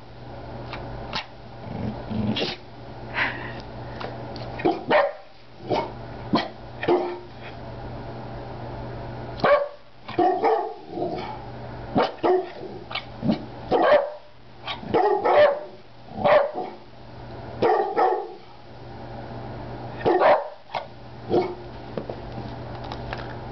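Rat terrier barking on command: about twenty short, sharp barks in uneven runs, with pauses between them, over a steady low hum.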